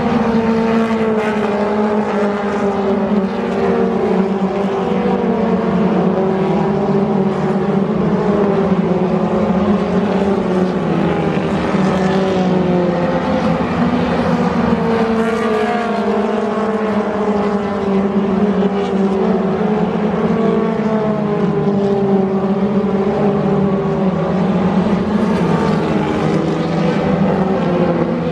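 A pack of Thunder Car stock cars racing on a dirt oval, their engines running hard together in one steady, loud din, with pitches slowly rising and falling as the cars speed up and back off through the turns.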